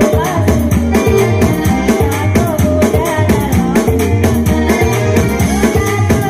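Elderly woman singing into a microphone, amplified over a live electronic keyboard backing with a steady rattling percussion beat.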